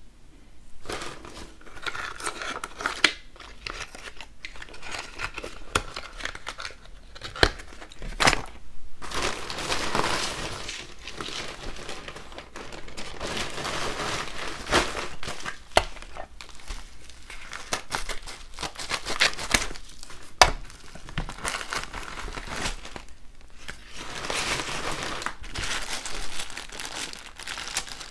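Thin plastic packaging crinkling and rustling as a poly mailer bag and small plastic bags are handled and opened, with several sharp snaps standing out.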